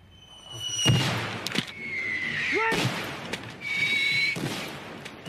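War-film mortar barrage: the high whistle of an incoming shell, then loud explosions about a second in and again about three seconds in.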